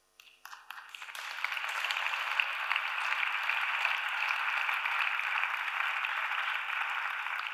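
Audience applauding. The applause starts about half a second in, swells over the next second, holds steady, and begins to die down near the end.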